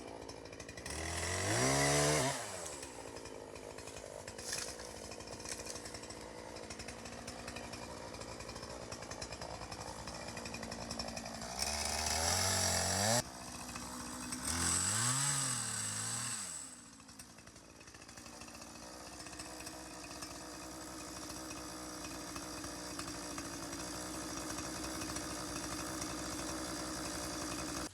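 Chainsaw running at idle, revved up hard three times: about a second in, around twelve seconds in (cutting off abruptly), and again soon after. Then it runs steadily and stops at the end.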